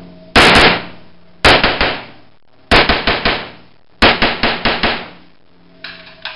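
AR-15 rifle fired in four quick strings of several shots each, about a second and a quarter apart, each string ringing off the walls of an indoor range. Quieter clicks follow near the end.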